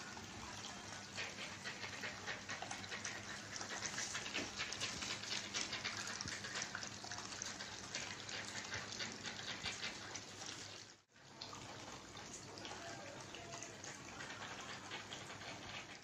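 Small tabletop waterfall fountain running: water trickling and splashing down its steps into a bubbling pool, with a steady low hum underneath. The sound drops out briefly about eleven seconds in.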